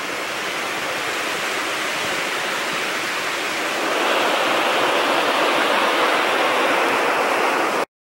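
Little Qualicum River rushing steadily below, louder from about four seconds in, then cut off suddenly near the end.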